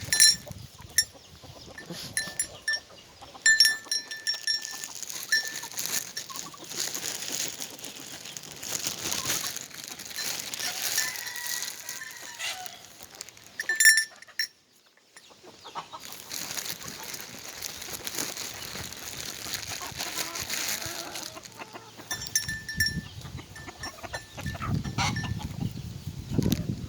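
Farm chickens clucking and goats, with a small bell clinking on and off.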